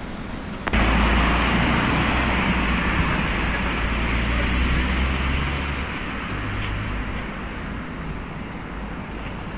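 City street traffic: a passing vehicle's engine hums low over the general traffic noise. It starts abruptly under a second in and slowly fades over the last few seconds.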